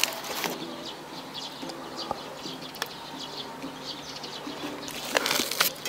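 Close-miked eating sounds: wet chewing and mouth smacks of someone eating pasta, irregular and crackly, with a louder noisy stretch about five seconds in. Faint background music underneath.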